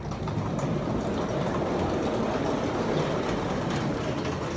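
A large shed door rolling open along its track: a steady rattling rumble that eases off at the end.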